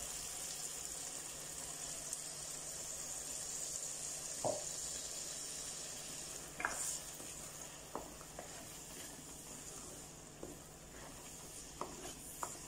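Sizzling as ground coconut masala paste meets the hot oil and sautéed tomatoes in the pot, slowly dying down. A few light knocks of a wooden spoon against the pot come as it is stirred.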